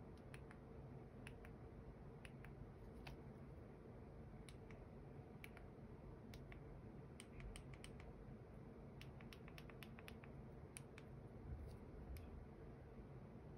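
Faint, irregular small clicks and taps of fingers handling a phone in an ultra-thin hard plastic case, most frequent about two-thirds of the way through, over a low steady room hum.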